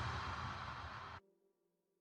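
Background electronic music fading down, then cutting off abruptly about a second in, leaving near silence.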